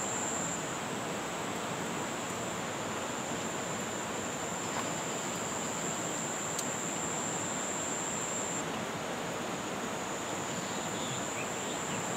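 Steady rush of flowing river water, with an insect's continuous high-pitched trill over it.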